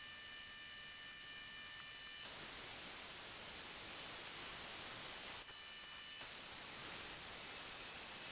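Milling machine running: a steady hiss with a faint hum. A set of steady whining tones cuts out abruptly about two seconds in and comes back briefly near six seconds.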